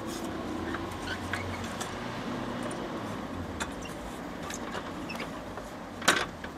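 Low steady background noise with a few light taps, then a sharp rattle about six seconds in: a cat pawing at a metal louvred shutter.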